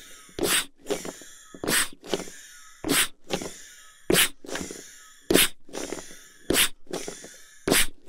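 Manual air pump being worked in a steady rhythm: about seven strokes, a little over a second apart, each a short sharp hiss of air followed by a fainter trailing hiss.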